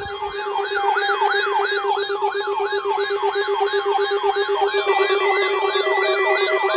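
Electronic siren yelping: a rapid rising-and-falling tone about three times a second over a steady lower tone, with a second pulsing tone joining near the end.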